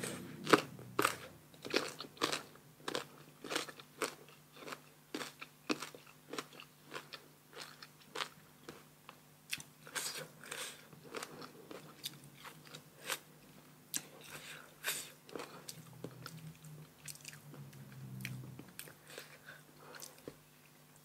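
Close-up crunching and chewing of crisp raw sour green mango: a quick series of sharp, crisp bites and crunches that thin out toward the end.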